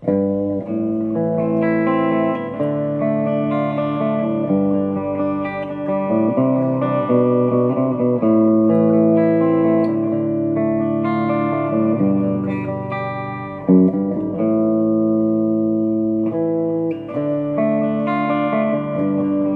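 Electric guitar played through a NUX Plexi Crunch overdrive pedal that is switched on: overdriven chords are strummed and left to ring, changing every second or two, with one sharp, loud strum about 14 seconds in.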